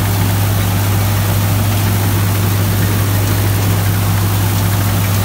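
John Deere 5210 tractor's diesel engine running steadily under load, driving a Chaany straw chopper-shredder whose rotor whirs as it chops stubble into straw. A constant deep hum sits under an even rushing noise.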